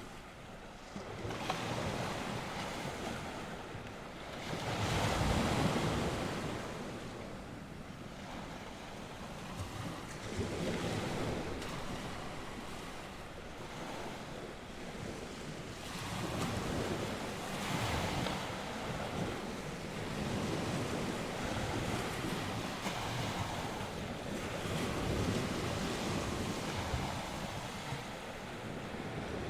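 North Sea waves breaking and washing on the shore, swelling and ebbing every few seconds, with wind blowing across the microphone.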